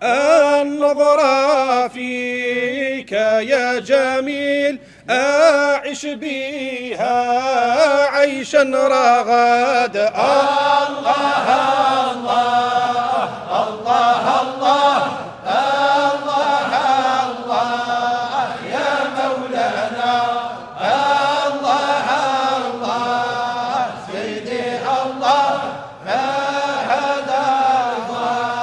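Men chanting a Sufi devotional poem (samaâ) together in melodic unison. The chant continues through the tea service, with a brief break about five seconds in and a fuller, steadier sound from about ten seconds in.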